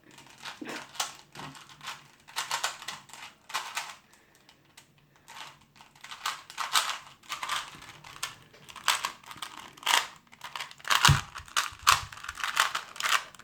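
Plastic Rubik's cube being turned fast by hand: a rapid, irregular run of clicks and clacks as the layers snap round, with a heavier knock about eleven seconds in.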